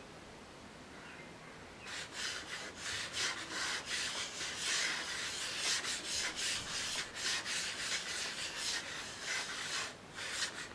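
Computer mouse dragged rapidly back and forth across a solid aluminium mouse pad: a quick, irregular scratching of the mouse's feet on the bare metal. It starts about two seconds in and stops shortly before the end.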